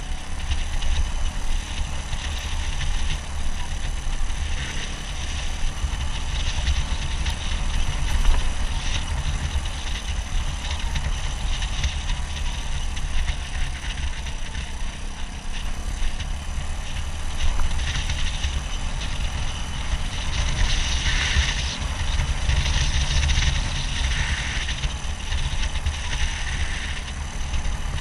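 Suzuki DR200 dual-sport motorcycle's single-cylinder engine running while riding, under heavy wind rumble on the microphone. Bursts of hiss come and go in the second half.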